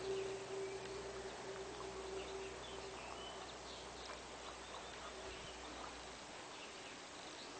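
Quiet outdoor ambience with faint, scattered bird chirps. A steady hum fades out about three seconds in.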